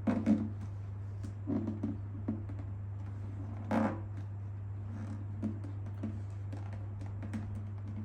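Vinyl decal being pressed and smoothed by hand onto a plastic motorcycle tail fairing: scattered short rustles and rubs of the film, the loudest about four seconds in, over a steady low hum.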